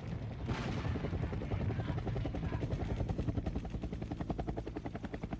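Helicopter rotor sound effect: a rapid, even chopping that runs steadily, part of a recorded battlefield soundscape. A sharp burst of noise comes about half a second in.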